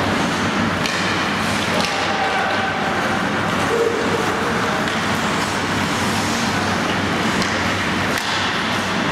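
Steady rushing background noise in an indoor ice rink during hockey play, with a few sharp clacks of sticks and puck scattered through it.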